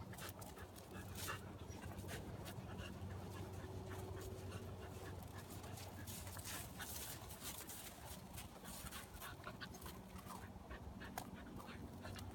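Corgi panting quietly, with scattered light crunches of snow.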